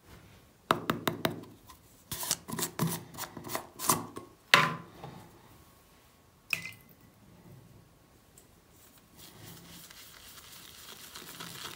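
Clicks and knocks from handling a plastic shaving cream tub and its lid on a wooden counter, with a single sharp tap about six and a half seconds in. From about nine seconds, a soft steady swishing as a shaving brush is swirled in the tub of cream to load it.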